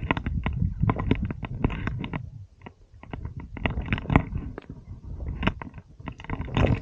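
Footsteps crunching and scraping on loose limestone scree on a steep descent, with small stones shifting and clattering underfoot in an irregular run of knocks over a low rumble.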